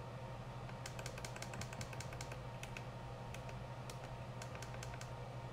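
Push buttons on a FrSky Taranis X9D Plus radio transmitter clicking in an irregular run, several presses a second, as a channel name is entered letter by letter. A steady low hum runs underneath.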